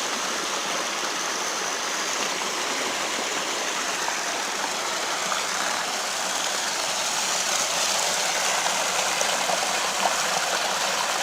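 Mountain stream rushing and splashing over rocks, a steady, even rush of water.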